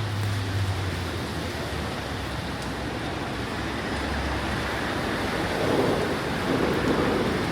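Steady rain hiss with city ambience. A low hum fades out about a second in, and the noise swells louder about six seconds in.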